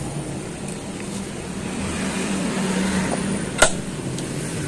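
Steady low hum of background vehicle noise, swelling a little a couple of seconds in, with one sharp click about three and a half seconds in.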